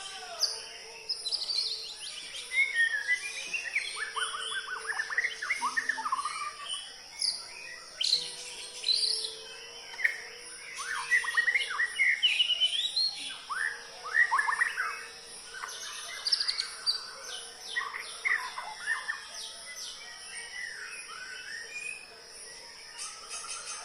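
White-rumped shama (murai batu) singing: a varied song of fast whistled sweeps and rapid trills in phrases separated by short pauses, growing sparser in the last few seconds, over a steady high-pitched background hum.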